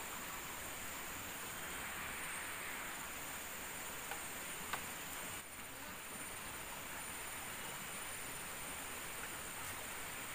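Insects droning steadily at a high pitch over an even hiss, with one small click about halfway through.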